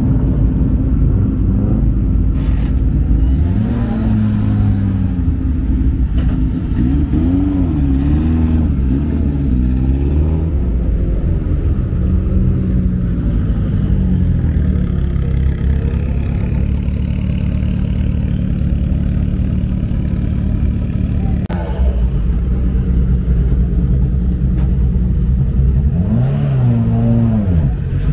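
Sprint car engines idling loudly, revved in short throttle blips that rise and fall in pitch several times, with a last blip near the end.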